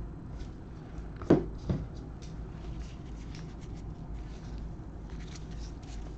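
Trading cards being handled and flipped through: faint soft clicks and rustles over a low steady hum. Two short, louder sounds about a second and a half in, the first sliding down in pitch.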